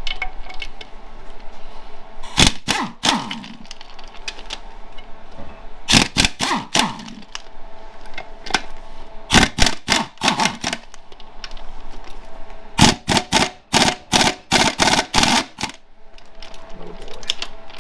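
Impact wrench hammering in four short bursts on stubborn transmission bell housing bolts. Some bursts are followed by a falling whine as the tool winds down.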